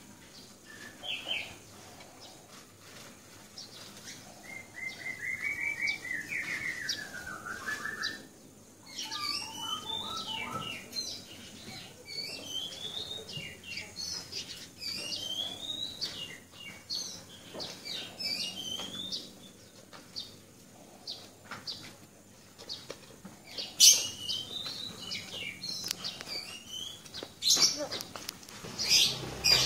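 Birds chirping and singing: a warbling phrase that falls in pitch, then a long run of short rising chirps repeated over and over. A few sharp clicks or knocks stand out near the end.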